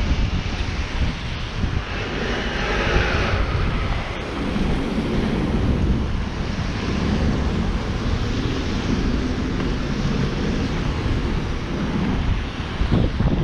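Street traffic noise, vehicles passing with a low rumble, with wind buffeting the microphone.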